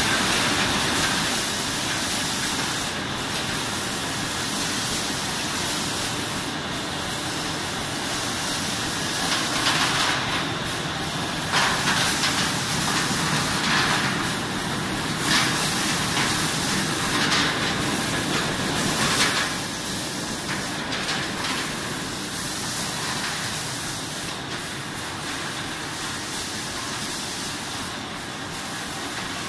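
Sidel SBO 10 stretch blow-moulding machine running: a steady hiss of compressed air and machinery, with repeated louder blasts of air in the middle stretch that then settle back to a slightly quieter steady hiss.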